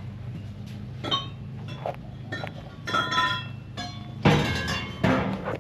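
Metal clinks and knocks with a bright ringing, as steel exhaust pipe pieces are handled and knocked together, over a steady low hum. About four seconds in comes a louder, short scraping rush.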